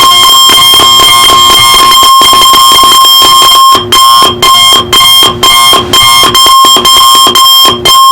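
Loud electronic alarm clock sounding a continuous fluttering tone, which about four seconds in changes to rhythmic beeping at about two beeps a second.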